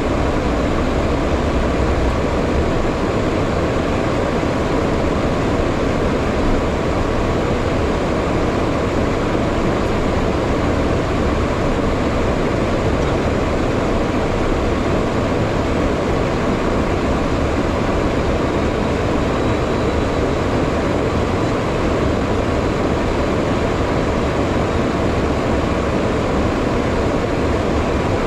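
Steady in-flight cockpit noise of a HondaJet: rushing airflow around the windscreen over the even drone of its turbofan engines, with a faint steady whine.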